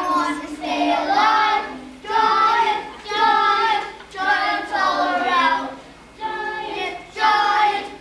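Children singing a song, in short phrases of held notes with brief breaks between them.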